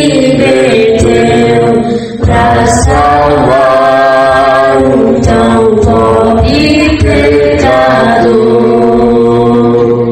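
A woman singing a slow hymn in Portuguese, with long held notes and a short break for breath about two seconds in.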